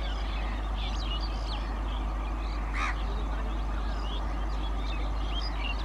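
Small birds chirping all through, with a steady low background rumble; one louder short call stands out about three seconds in.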